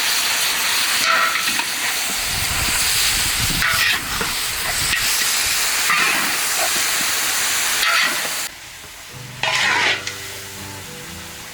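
Food sizzling as it fries in a hot pan, stirred with a utensil that scrapes about every two seconds. The sizzle stops about three-quarters of the way through, and soft background music takes over.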